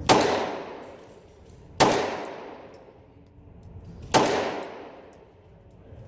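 Three 9mm shots from a Glock 17 pistol, about two seconds apart, each followed by a short echoing tail.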